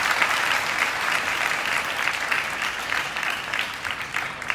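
Arena audience clapping for a point just won in a table tennis match, many quick claps dying away near the end.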